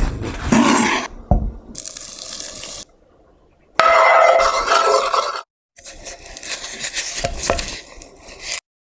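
Kitchen sounds in short separate bursts. First a serrated knife saws through soft white sandwich bread. After a brief pause a spoon stirs and scrapes a bowl of melted butter and honey, with a ringing tone. Then a slice of bread is pressed and dabbed in the liquid butter.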